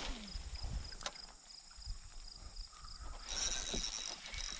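Insects singing: a steady, evenly repeated high chirping, joined about three seconds in by a louder high buzz. Under it, low rumbling and a faint click about a second in.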